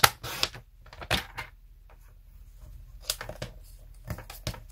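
Paper crafting at a work table: a few short clusters of clicks and taps as a piece of cardstock is handled and cut to size.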